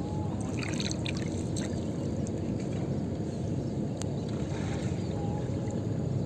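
Gill net being hauled hand over hand into a wooden canoe, water dripping and splashing off the net back into the lake, over a steady low rumble. A single sharp click near the four-second mark.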